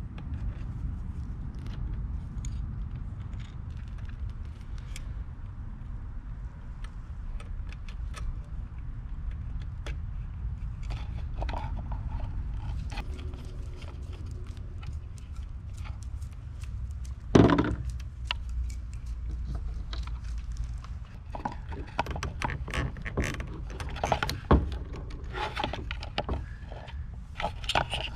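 Small metallic clicks and scrapes of a screwdriver, terminal screws and wires against a pool pump motor's wiring compartment as the supply wires are disconnected and pulled out through the conduit adapter. The clicks come more often in the last third, with one louder knock about two-thirds of the way through, over a steady low rumble.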